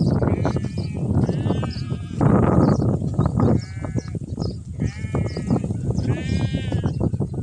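Sheep bleating, about five bleats with a wavering pitch, each about half a second long, over a steady low rumble.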